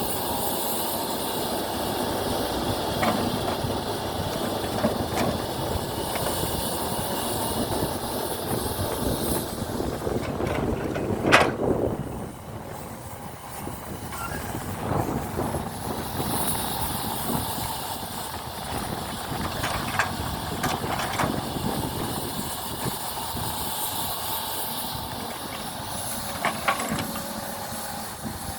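Excavator working while loading soil into a truck: a steady mechanical running noise with hiss, and a sharp knock about eleven seconds in, after which it goes quieter for a few seconds before picking up again with lighter clicks.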